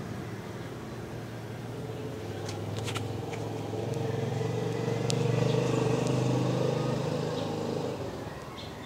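A motor vehicle's engine passing by, a steady low hum that grows louder to a peak about halfway through and then fades.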